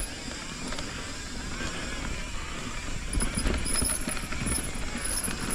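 Mountain bike moving along a dirt trail: a rough, steady rumble of tyres and wind with irregular knocks and rattles from the bike.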